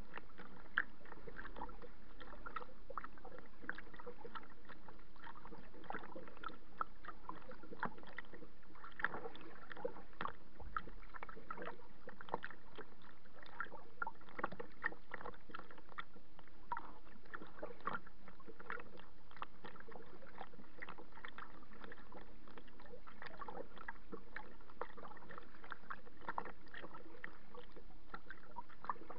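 Small waves lapping and splashing against a kayak's hull: a steady wash of water broken by many irregular little slaps.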